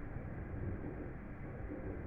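Thunderstorm noise: a steady low rumble with no distinct thunderclap.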